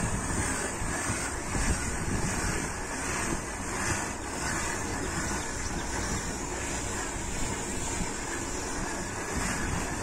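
Wind buffeting the microphone: a steady, uneven rumble with a constant high hiss over it.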